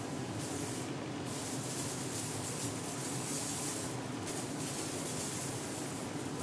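One-gallon hand-pump garden sprayer misting water through its wand nozzle, hissing in several bursts as the trigger is squeezed and let go; the longest lasts about two and a half seconds. A steady low hum runs underneath.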